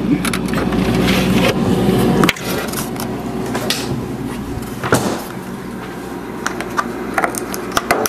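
Plastic clicks and knocks as the ice maker's fill-tube piece is pushed down and worked loose from the freezer wall, over a steady low hum that drops away about two seconds in.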